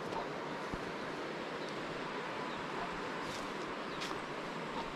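Steady outdoor background hiss, with a few faint short chirps and clicks.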